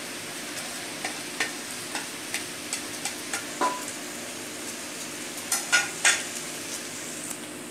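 Pasta and fried vegetables sizzling in a pan while being stirred, with a steady hiss and light clicks of the utensil against the pan. There are three louder knocks about five and a half to six seconds in.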